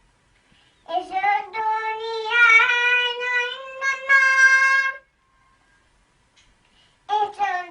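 A child reciting the Quran in a melodic chant. One long phrase of about four seconds with held, wavering notes, then a pause of about two seconds before the next phrase begins near the end.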